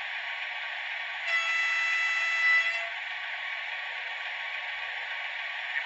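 Märklin mSD3 sound decoder in an H0 Brawa BR 232 'Ludmilla' diesel locomotive model playing its diesel engine running sound through the model's small loudspeaker, thin with no low end. Just over a second in it sounds one steady horn blast about a second and a half long.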